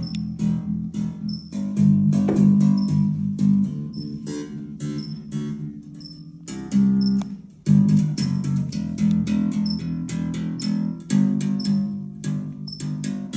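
Electric bass played finger-style: a line of low plucked notes with a few short breaks, alongside a small high tick repeating at a steady pace that keeps time.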